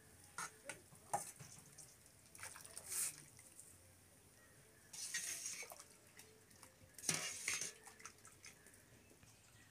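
Aluminium bowls and a metal cooking pot clinking and knocking, with splashes as soaked rice and water are tipped into the pot and stirred with a metal ladle. Two longer splashy, scraping stretches come about halfway through and again a couple of seconds later.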